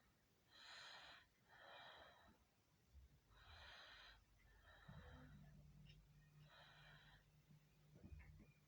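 Faint breathing close to the microphone, soft in-and-out breaths about every second and a half. A low steady hum comes in about halfway through.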